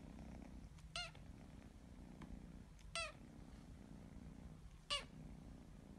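A sleeping kitten purring softly while being stroked, with three brief high-pitched squeaks about two seconds apart.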